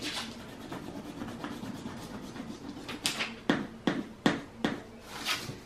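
Crayon scribbling back and forth on paper, a run of scratchy strokes about two or three a second that grows louder around the middle.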